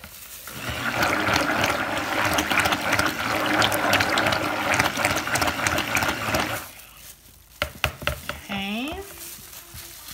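Stick blender running in thick soap batter for about six seconds, a steady motor hum with the churning of the batter, then switched off. A few sharp clicks follow near the end.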